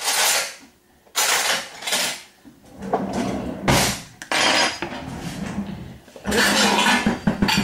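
Kitchen items being handled: a run of about six short rattling, rustling noises from utensils and containers being moved about, the last one lasting longer, near the end.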